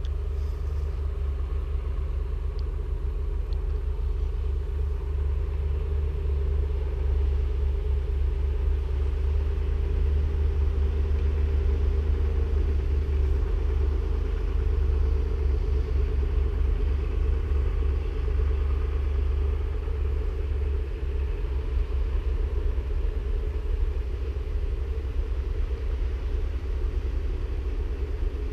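A steady low rumble with a faint, slightly wavering hum on top of it.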